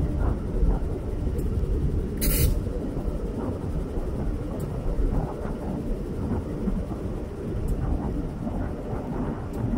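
Low rumble of idling vehicles beside a stationary passenger train, with faint voices. A short burst of hiss comes about two seconds in.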